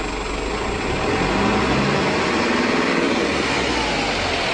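Toyota Hilux Surf's intercooled turbo diesel engine revved up from idle about a second in, held at higher revs, then easing back near the end.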